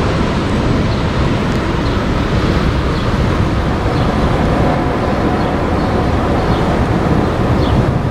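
Freight train of tank cars rolling past: a steady rumble of steel wheels on rail, with faint high ticks about once a second.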